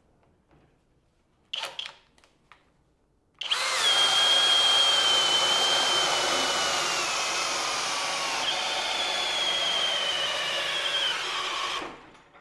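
Flex brushless hammer drill boring into wood with a large bit under heavy load, running continuously for about eight seconds after a few short clicks. Its high motor whine sags slowly as the bit bites in, picks back up about two-thirds of the way through, sags again, and then cuts off sharply.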